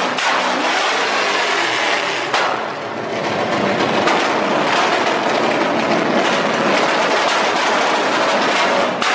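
Corvette V8 engine in a car, revving hard and held at high revs, dipping briefly about two and a half seconds in before climbing again. Sharp exhaust pops crack out near the end.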